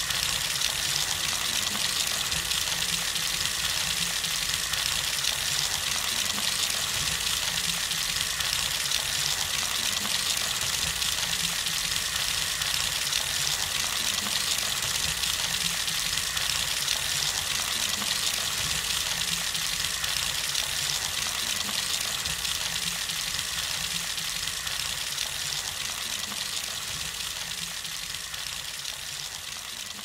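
Water running steadily, a constant gushing noise that fades out over the last several seconds.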